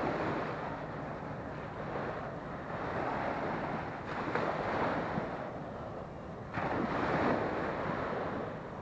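Small sea waves breaking and washing up a sandy shore, the surf noise swelling and fading every couple of seconds, with one surge coming in sharply about two thirds of the way through. Wind buffets the microphone.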